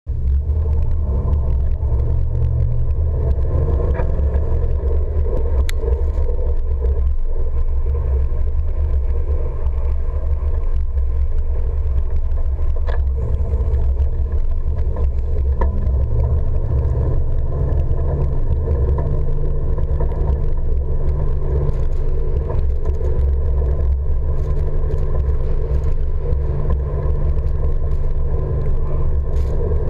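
An SUV driving slowly through deep snow, heard from beside its wheels: a steady low rumble of engine and tyres ploughing snow, with a few faint clicks.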